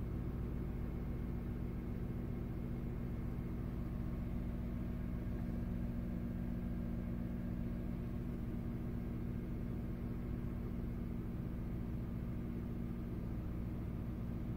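Vehicle engine idling steadily, a low even hum heard from inside the cab.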